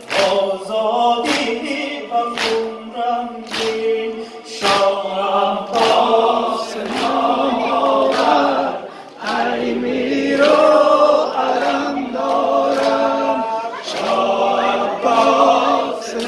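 A congregation of men chanting a Persian Muharram mourning lament (noha) in unison, with sharp slaps of chest-beating (sineh-zani) landing about once a second.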